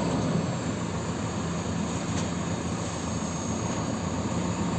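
JCB 4DX backhoe loader's diesel engine running steadily close by, a continuous low rumble.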